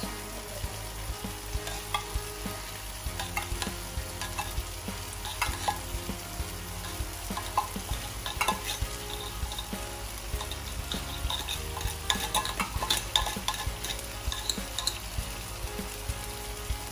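Food sizzling in a stainless steel frying pan while a metal spoon scrapes and taps canned fried sardines out of a tin can, giving many scattered clicks and scrapes over a steady frying hiss.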